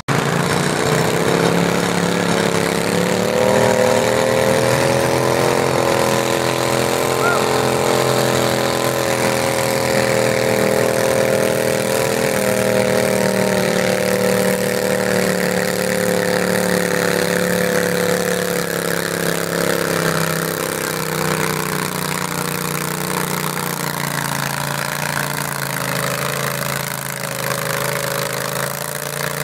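Garden tractor engine running steadily for the whole stretch, its pitch wavering a little and sagging slightly in the last third.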